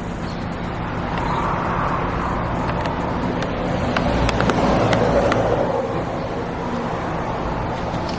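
Road traffic: cars passing by over a steady low hum, the louder pass about four to five seconds in. A few faint clicks sound over it.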